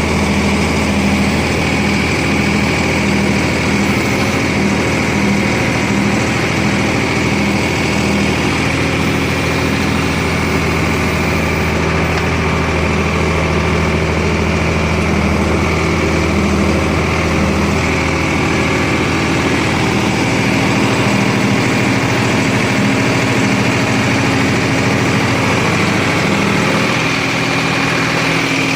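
Sonalika 50 hp tractor's diesel engine running steadily, its note changing slightly near the end.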